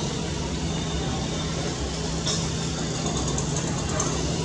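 Steady low hum of engines and road traffic, with a short hiss a little past halfway.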